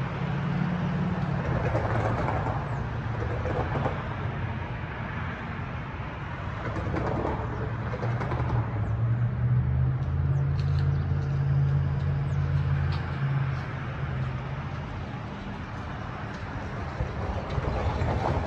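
A steady, low engine drone, as of road vehicles near the railway, swells about halfway through and then eases. Birds call faintly over it.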